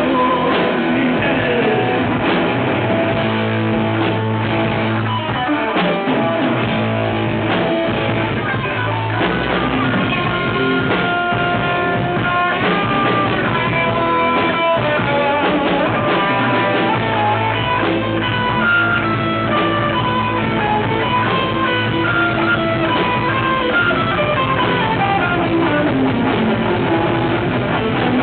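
Live rock band playing an instrumental section with no singing: a guitar plays melodic runs that step down and climb back up over bass and drums.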